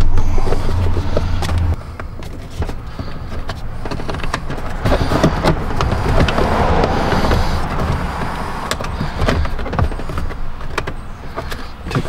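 Plastic steering column covers of a 2010 Hyundai Accent being pried and wiggled apart by hand: scattered clicks, knocks and plastic rubbing. A steady low hum runs under the first two seconds, then stops.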